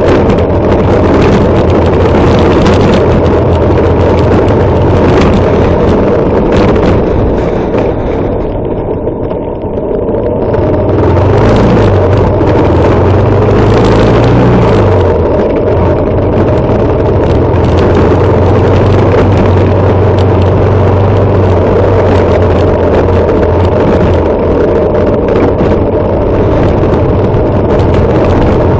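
Harley-Davidson Sportster SuperLow XL883L's 883 cc V-twin engine running under way, heard close with wind noise on the microphone. About eight seconds in the engine eases off and the sound drops, then its pitch rises and falls as it picks up again before settling into a steady run.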